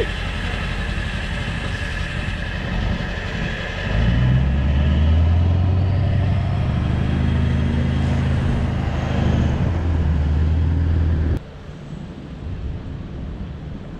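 Boat engine running at low speed, a steady low hum. It grows louder about four seconds in and stops abruptly about eleven seconds in.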